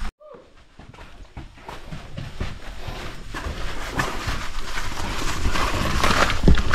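Footsteps crunching and scuffing on loose sand and gravel down a steep trail, an irregular run of steps that gets louder toward the end.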